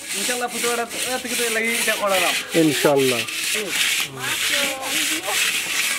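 A hand rubbing a wet mud coating over the outside of a large aluminium cooking pot in repeated strokes, with gliding squeaky tones.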